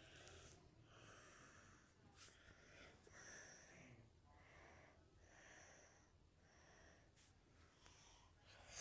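Faint breathing close to the microphone, a soft puff of air roughly every second.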